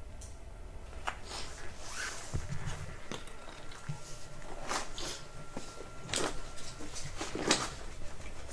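Footsteps crunching and scraping on loose broken stone rubble, uneven, about one or two steps a second, the loudest near the end.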